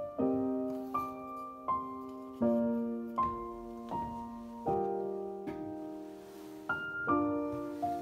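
Slow background piano music: gentle notes and chords, a new one struck about every second and left to fade.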